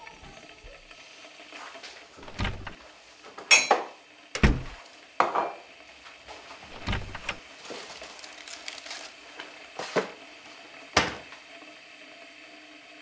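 Kitchen clatter: a string of sharp knocks and clinks, about eight in all, as crockery and cutlery are handled and a wall cupboard door is opened.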